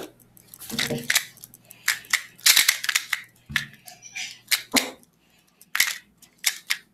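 A 3x3 speedcube being turned fast in a solve: irregular bursts of quick plastic clicking and clacking as the layers are flicked.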